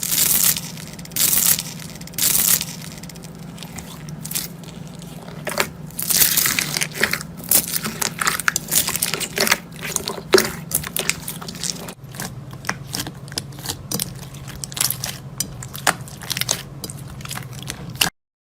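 Slime being squeezed and pressed, giving irregular crunching crackles and pops over a low steady hum.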